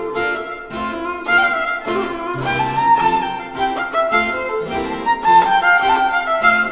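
Violin, harpsichord and double bass playing a lively baroque gigue in a steady rhythm: a bowed violin melody over plucked harpsichord chords and a low bass line.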